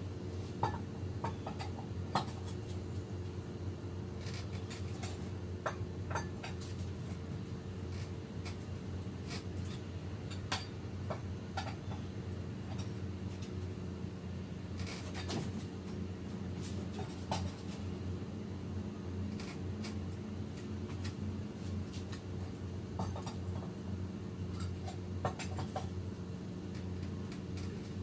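A steady low mechanical hum, with scattered faint clicks and taps throughout.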